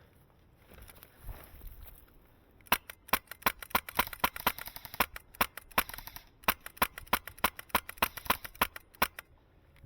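Rapid airsoft gun fire: a quick string of sharp clicks, about four a second, starting about three seconds in and stopping just before the end.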